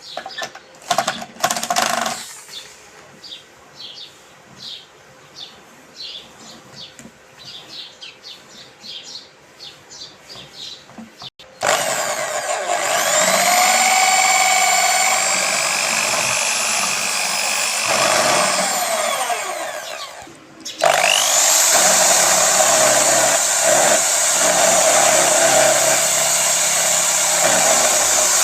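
Electric drill motor switched on about eleven seconds in, its whine rising as it spins up, then running steadily; it winds down and stops, and is switched on again a second later. Before it starts, a run of short chirps about two a second.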